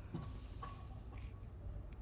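Quiet outdoor garden ambience with a steady low rumble and a few faint, brief bird calls.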